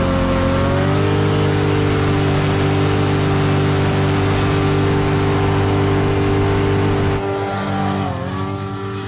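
Engine running steadily at high revs under load. About seven seconds in the sound changes abruptly, and a moment later the pitch dips briefly and comes back up.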